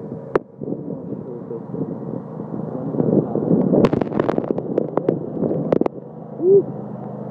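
Cub Cadet LT1050 lawn tractor engine running steadily while plowing snow, under wind noise on the microphone. About halfway through comes a stretch of clattering knocks, and near the end a short rising-and-falling sound.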